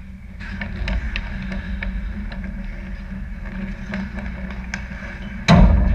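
Ice hockey play close to the goal: skates scraping and sticks and puck clicking on the ice over a steady rink rumble, then a sudden loud crack near the end as the puck or a stick hits at the net.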